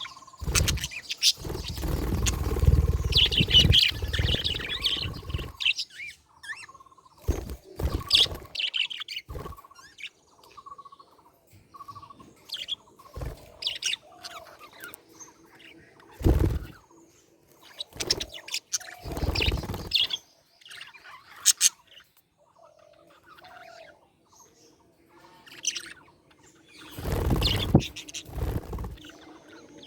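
Budgerigars chirping and chattering in irregular bursts, with several louder, rougher stretches among the chirps.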